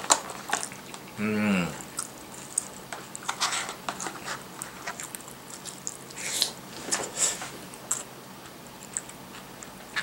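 Close-up eating sounds: chewing curry rice and breaded pork cutlet, with scattered sharp clicks of a plastic spoon against a plastic takeout tray. A short hummed "mm" about a second in.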